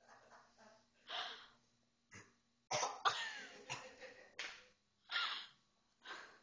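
A run of short, breathy, cough-like bursts from a throat, about ten in quick succession, the loudest around the middle, some with a brief squeak.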